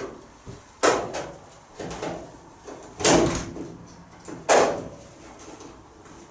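Three loud knocks about a second and a half apart, each ringing briefly, with smaller clatters between them.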